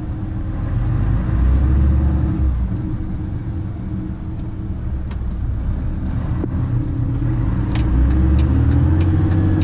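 Volvo FM 340 truck's diesel engine running under way, heard inside the cab: a steady low drone that grows louder about a second in, eases off in the middle and pulls harder again near the end.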